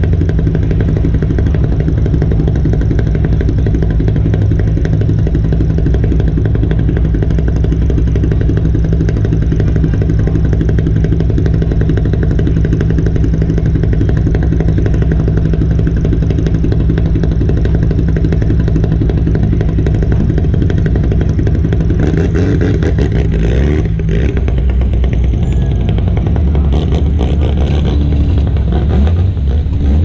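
A rally car's engine idling steadily and loudly while the car waits in line; its note changes about three-quarters of the way through, with a few light clatters near the end.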